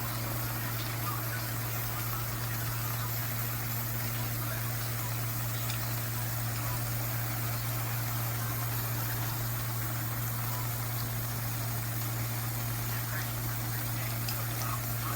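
Steady low hum, like a fan or small motor running, unchanging throughout.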